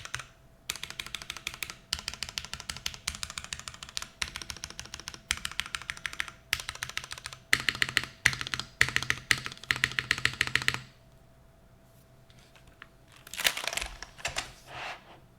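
Typing on a DNworks Silver 75% mechanical keyboard with lubed MX Black switches in an aluminium top-mount case: fast key clacks in bursts, stopping about four seconds before the end. A short, softer scuffing noise follows near the end.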